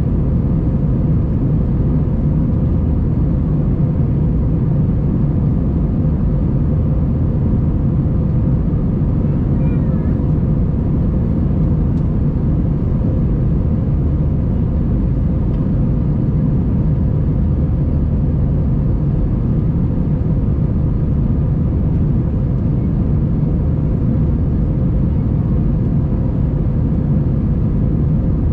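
Steady cabin noise inside an Airbus A320-232, its IAE V2500 engines and the airflow giving a constant low rumble with a faint even hum.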